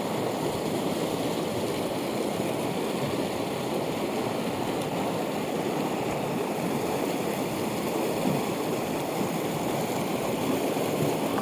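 Mountain torrent rushing steadily over rocks and small cascades of white water.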